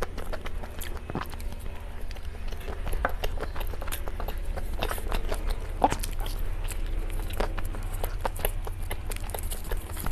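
Close-miked chewing of cake: wet mouth clicks and smacks coming thick and irregular over a steady low hum.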